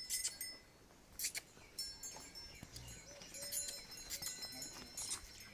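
Small metal livestock bells jingling and clinking in irregular strokes, each leaving a brief high ringing tone.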